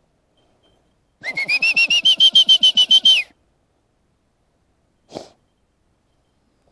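A hunter's whistle blown in a rapid trill of about twenty short blasts over two seconds, rising in pitch at the start and then holding steady, signalling to the hunting dog. A single short knock follows a couple of seconds later.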